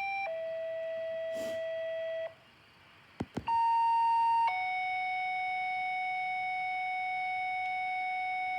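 Radio dispatch two-tone pager tones. A steady tone steps down in pitch and holds for about two seconds. After a short gap and two clicks comes a second pair: a loud higher tone for about a second, stepping straight down to a long, steady lower tone.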